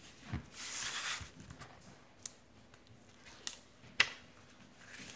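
Rustling and crinkling of a diamond painting canvas and its plastic cover film as the corners are bent back to flatten it, with a few sharp clicks, the loudest about four seconds in.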